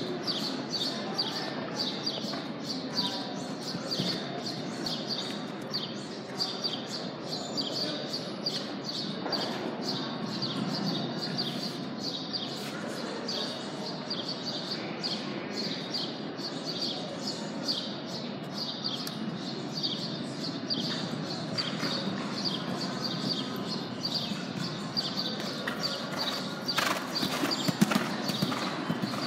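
Horse cantering on sand arena footing, its hoofbeats muffled, loudest near the end as it passes close. Throughout there is a steady, rhythmic high-pitched chirping.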